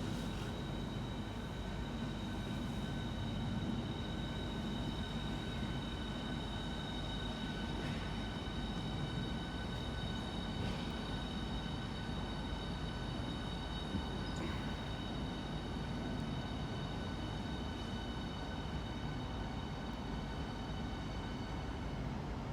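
Southeastern Javelin (Class 395) high-speed electric train: a steady electrical whine of several high tones over a constant low hum, with no change in pitch or level.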